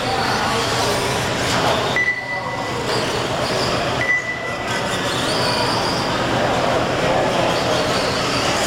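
1/10-scale electric RC trucks racing on an indoor dirt track: a steady mix of motor whine and tyre noise, with two short high whines about two and four seconds in.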